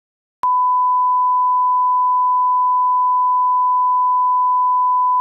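Bars-and-tone reference tone: one steady, unwavering pure test tone of the kind that goes with colour bars. It starts abruptly about half a second in.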